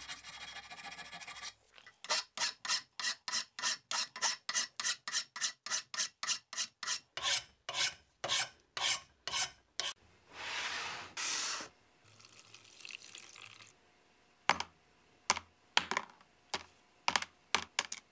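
Hand file rasping on a cast iron part held in a vise: quick strokes at about four a second, slowing to about two a second. Then two longer scrapes, and near the end a string of sharp clicks.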